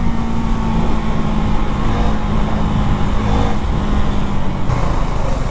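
KTM 390 Duke's single-cylinder engine running at a steady cruise, under loud wind rush and road noise from riding. Near the end the steady engine note drops away and the wind hiss gets brighter.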